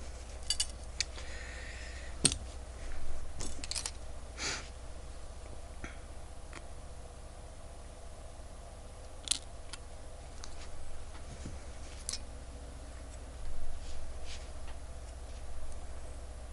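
Small clicks and taps of watch tools and parts being handled on a workbench, about a dozen with irregular gaps, with a few short rustles over a steady low hum.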